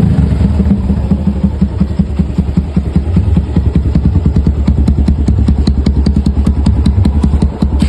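Motorcycle engine idling with a rapid, regular knocking clatter: piston slap, the sign of a worn piston with too much clearance in its cylinder.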